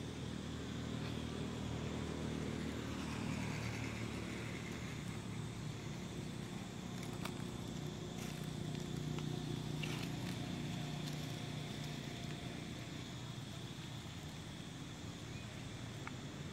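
Steady low engine hum of motor vehicles passing, growing louder twice, with a few faint clicks.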